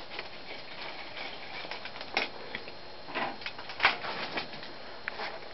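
Evergo cast-iron spinner ceiling fan running slowly on its lowest speed, with irregular light clicks and taps over a steady soft hiss; several louder clicks come in the middle.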